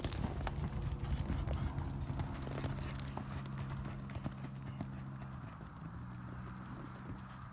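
Horse hoofbeats on soft arena dirt as a horse lopes around a barrel pattern.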